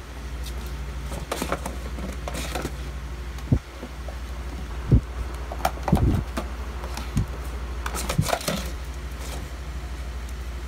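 Steady low mechanical hum, with scattered soft clicks and a few dull thumps over it.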